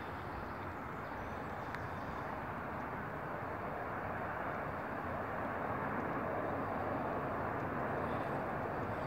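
Steady low rumble of a distant engine, growing slowly louder.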